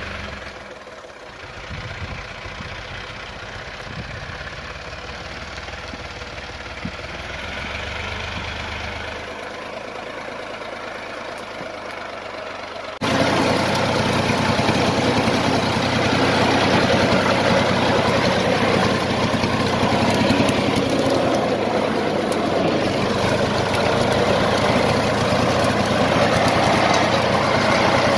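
Diesel engine of a xe cày farm truck laden with cassava, running steadily. About 13 seconds in it turns abruptly louder and harsher and stays that way.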